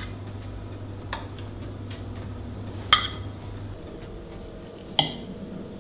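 Metal cutlery clinking against dishes: a faint tap about a second in, then two sharp clinks about three and five seconds in, the last one ringing briefly. A low steady hum stops a little past halfway.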